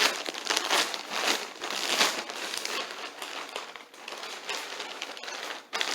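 Gift packaging being torn open and crumpled by hand: irregular crinkling and rustling, loudest in the first two seconds and softer after, with one more burst near the end.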